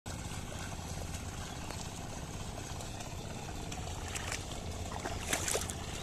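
A pair of oxen and a wooden plough sloshing through a flooded paddy field, with a cluster of sharper splashes from about four seconds in over a steady low background rumble.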